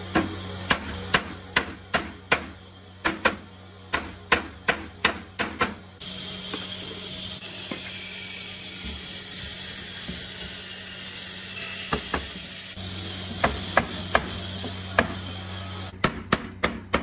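Hammer blows on a hardwood frame, knocking its joints together, about two strikes a second. About six seconds in the hammering gives way to a steady high hiss that runs for about ten seconds, with a few light knocks in it, and the hammer strikes resume near the end.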